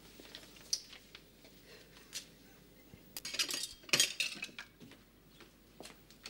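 Crockery clinking: a cup and saucer and cutlery knocking together on a table, a few light clicks and then a short cluster of clinks about three to four and a half seconds in.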